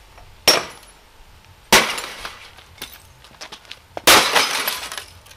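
Hammer blows smashing the glass front of an IBM CRT monitor: three strikes, about half a second in, near two seconds and a heavier one about four seconds in, each cracking glass, with loose shards clinking between them.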